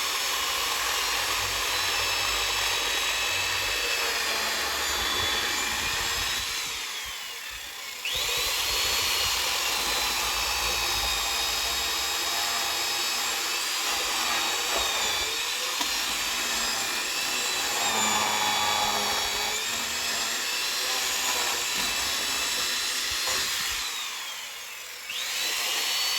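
Electric chainsaw cutting through a log to firewood length: a steady high-pitched motor whine that winds down twice, about seven seconds in and near the end, each time starting up again right after.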